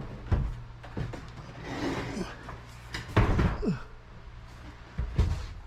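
A series of knocks and bangs from objects being handled and set down. The loudest come about three seconds in and again about five seconds in, over a low steady hum.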